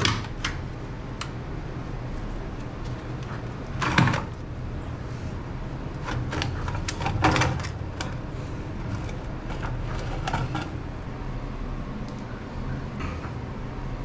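Metal knocks, clicks and scraping as an old propeller-shaft bearing block is worked loose and lifted off the shaft. The sharpest knocks come at the start, about four seconds in and around seven seconds in, over a steady low hum.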